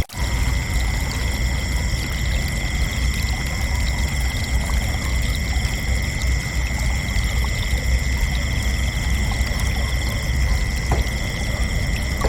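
Crickets trilling in one continuous, unbroken high-pitched tone, over a steady low rumble. Everything drops out for an instant at the very start.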